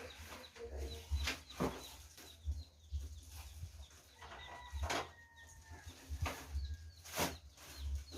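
Chickens clucking and cheeping, with a held call about four seconds in. A few sharp clicks and low knocks come through, the loudest sounds here.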